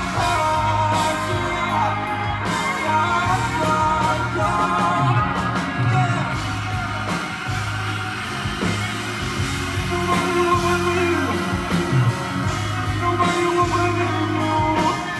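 Loud live concert music with a heavy steady bass and a singing voice over it.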